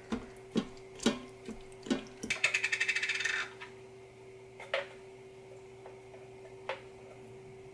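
Spatula stirring a thick tomato and ground-turkey mixture in an Instant Pot's stainless steel inner pot: a series of knocks and scrapes against the pot, a quick rattling run of taps about two and a half seconds in, then two lone taps later. A faint steady hum sits underneath.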